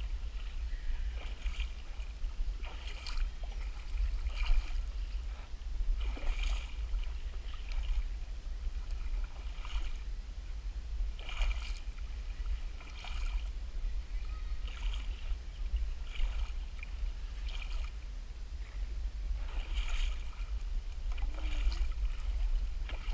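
Someone wading through shallow pond water: sloshing splashes about every second and a half, over a steady low rumble.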